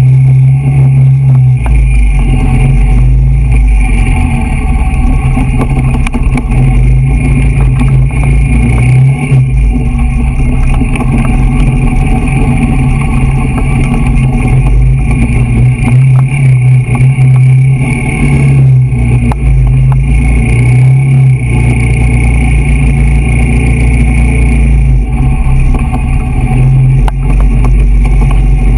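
Quad bike (ATV) engine running steadily while riding a dirt trail, with low wind rumble on the mounted camera's microphone.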